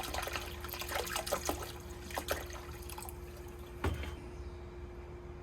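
White vinegar being poured over rusty hand-plane parts in a container to soak the rust off, with trickling and splashing that thins out after about three seconds. A single knock comes about four seconds in, and a faint steady hum runs underneath.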